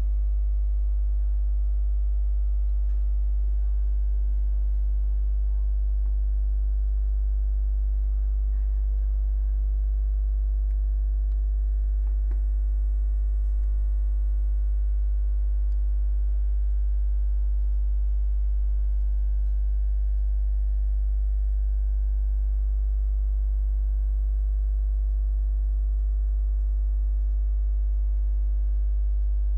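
Loud, steady low electrical mains hum with a ladder of fainter overtones above it, unchanging throughout, with a single faint click about twelve seconds in.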